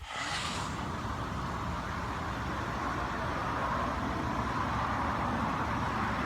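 Steady engine and road noise of a 2017 Hyundai Santa Fe under way, heard from inside the cabin, slowly getting louder.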